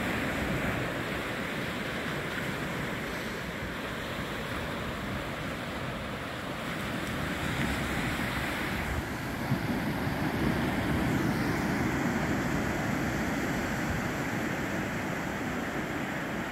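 Surf of small waves breaking and washing up a sandy beach: a steady hiss of water that swells and eases, with some wind rumble on the microphone.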